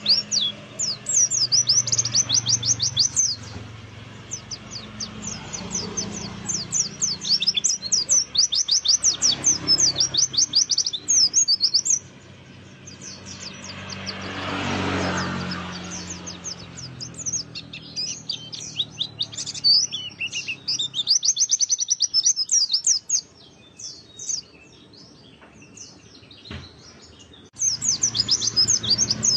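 White-eye (pleci) singing a long, fast twittering song of high, sweeping chirps in runs broken by short pauses, over a low steady hum. A lure song that birdkeepers play to set other white-eyes singing.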